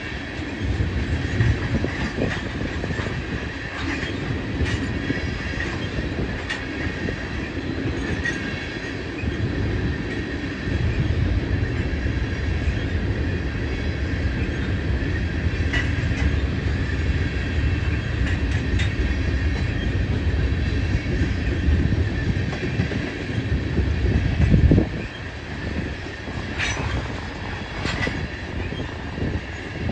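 Norfolk Southern freight train of tank cars rolling past: a steady rumble of steel wheels on rail with a thin, steady high whine over it and occasional sharp clicks. The rumble drops off suddenly about 25 seconds in.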